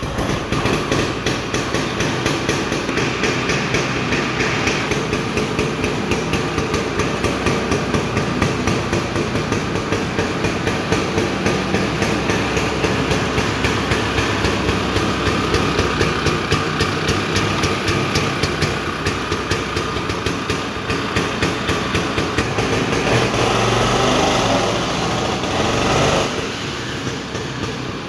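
Chaparral Model 300 snowmobile's small fan-cooled two-stroke engine running at idle just after starting, with a rapid, uneven pulsing. Near the end it picks up briefly, then settles back.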